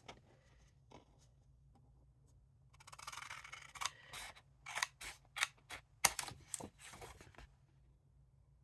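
Scissors cutting paper or cardstock: about ten short snips over roughly four seconds, over a faint low steady hum.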